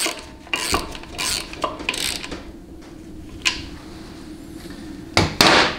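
Irregular metal clinks and clatter of a hand ratchet and small steel parts as the speed sensor is taken out of a 700R4 transmission's extension housing, with a louder half-second clatter near the end.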